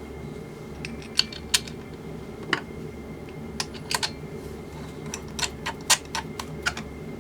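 Small metal camera-rig parts clicking and knocking together as they are handled and fitted: a run of sharp, irregular clicks, some in quick clusters, over a steady low hum.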